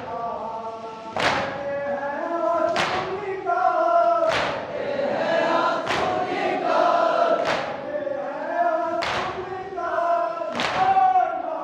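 Group of men singing a nauha lament together in unison, punctuated by a loud collective chest-beat (matam) about every one and a half seconds.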